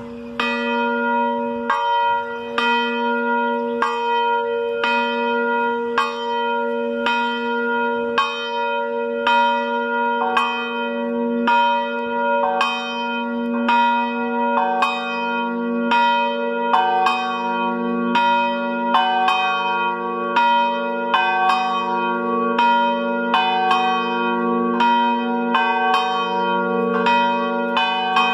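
Church bells swinging in an open bell tower, ringing with a steady run of strikes that each ring on, about one a second at first. About ten seconds in another bell joins and the strikes come faster and overlap.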